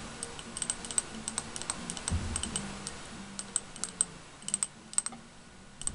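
Fingernails tapping on a small glass candle jar: light, irregular clicks, a few in quick runs, with a soft low knock of handling about two seconds in.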